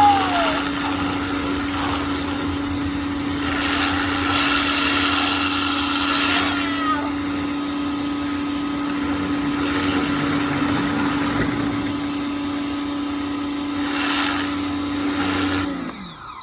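Greenworks 1700 psi electric pressure washer running: a steady motor-and-pump hum under the hiss of the water spray, which grows louder a few times. Near the end the motor winds down and stops.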